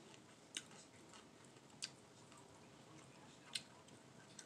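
Faint, sharp clicks from someone eating a plate of fried fish, three of them a second or two apart.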